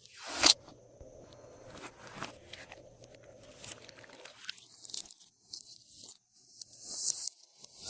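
Glossy slime with assorted add-ins mixed through it being kneaded and stretched by hand. It gives a string of small clicks and pops, with a louder rush about half a second in.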